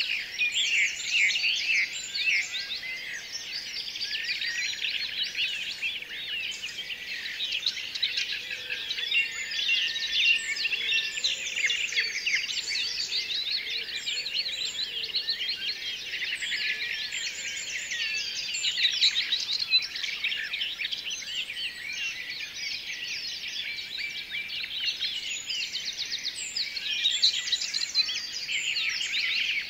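Dense chorus of many small birds chirping and chattering continuously, with rapid overlapping high calls.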